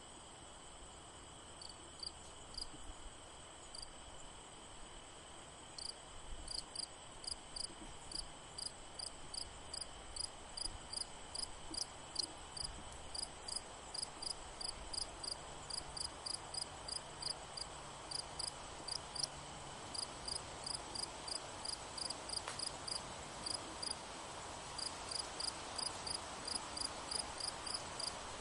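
A cricket chirping in short, evenly repeated chirps, about two a second, sparse at first and steady from about six seconds in. A faint steady high whine runs underneath.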